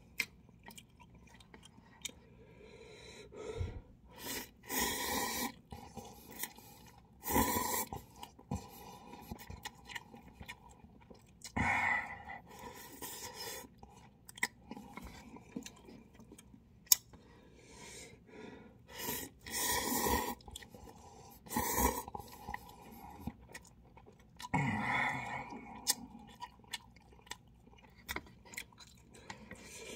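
A man eating instant cup ramen close to the microphone: loud noodle slurps lasting about a second each, five or six of them several seconds apart, with quieter chewing and small mouth clicks in between.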